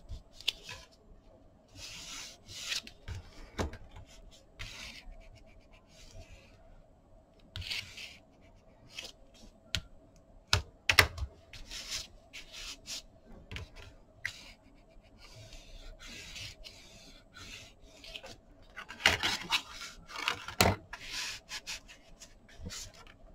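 Hands handling and folding kraft cardstock: scattered rustles and light taps, then rubbing over the card to press the fold flat, loudest a few seconds before the end.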